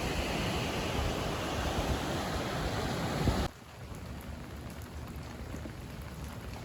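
Steady rushing noise with no distinct events, cutting abruptly to a quieter rushing noise about three and a half seconds in.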